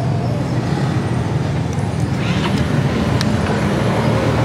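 Street traffic: vehicle engines, including a motorcycle, running close by in a steady rumble, with two short clicks about two and a half and three seconds in.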